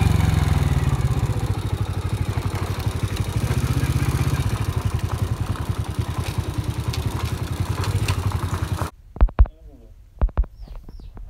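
Honda EX5 Dream's single-cylinder four-stroke engine running as the motorcycle is ridden slowly, its level gradually falling. About nine seconds in it cuts off abruptly, followed by two dull thumps.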